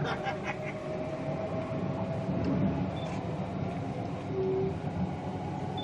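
Electric passenger train running along the track, heard from inside the carriage: a steady low rumble of wheels on rail with a thin, steady whine that creeps slightly up in pitch.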